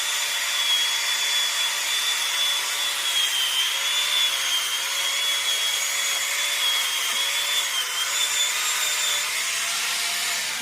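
High-speed electric power tool cutting into wood: a steady high whine over a gritty hiss, its pitch dipping a little now and then as the cutter loads up in the wood.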